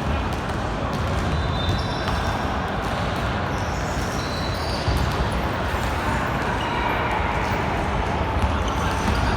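Basketball game in play: a ball bouncing on the court and sneakers squeaking, over a steady background din.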